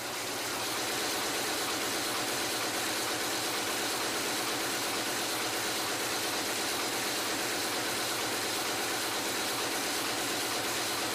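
Power loom weaving tartan cloth, running with a steady, even mechanical noise at a constant level throughout.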